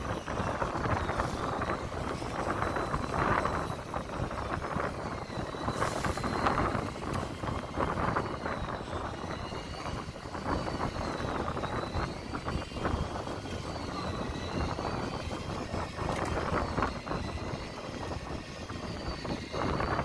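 Wind and rough sea on the deck of a small fishing boat at night, over the steady drone of the boat's engine, the loudness swelling and easing. From about the middle on, a faint high whine wavers up and down in pitch.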